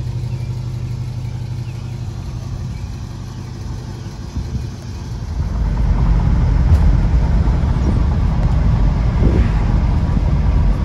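1973 Ford Mustang Mach 1's V8 running steadily, then about five and a half seconds in it turns louder and rougher as the car drives on the road, heard from inside the cabin.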